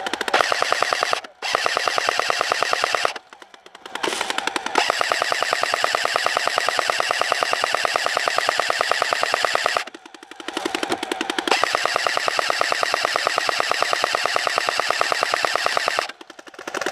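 A&K M249 SAW airsoft machine gun, an electric gearbox gun, firing long full-auto bursts with a fast, even rattle. There are four bursts broken by short pauses, the longest running about six seconds.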